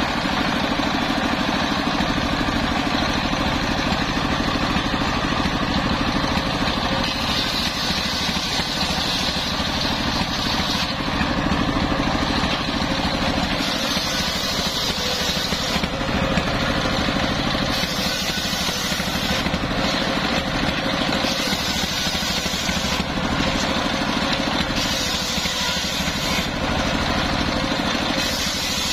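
Homemade table circular saw, belt-driven by a stationary engine that runs steadily throughout. The blade rips through timber in repeated cuts of a few seconds each, each cut adding a high hiss over the engine's drone.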